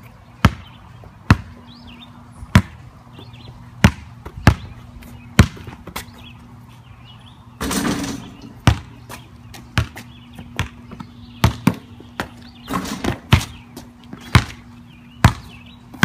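A basketball dribbled on pavement, bouncing sharply about once a second at an uneven pace. About eight seconds in, and again near thirteen seconds, there is a longer noise lasting under a second.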